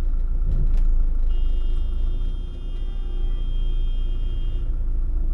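Motorhome engine running with a steady low rumble in the cab while it creeps through traffic. From about a second in, a steady high-pitched tone sounds for about three seconds and then stops.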